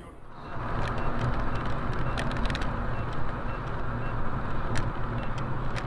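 Steady engine and tyre noise of a car driving along a highway, heard from a dashcam inside the cabin, with a few faint clicks. The noise comes in about half a second in.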